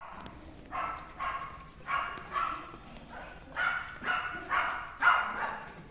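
Great Dane puppy lapping water from a steel bowl: short wet strokes, about two a second, with pauses between runs.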